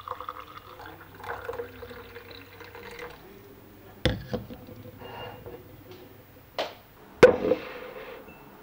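Liquid being poured or dripping, with a few sharp knocks that ring briefly: two close together about four seconds in, another at about six and a half seconds, and the loudest at about seven seconds.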